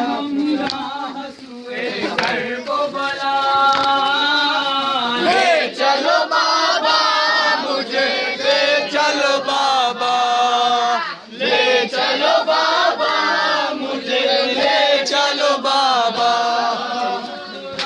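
Male voices chanting a nauha, a Shia lament, in unison with long held notes. The chanting breaks off briefly about a second in and again at about eleven seconds.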